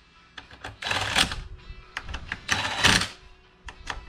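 Hand tool tightening the bolts of a motorcycle's data-logger bracket: two bursts of rapid clicking, each about half a second long, about a second and a half apart.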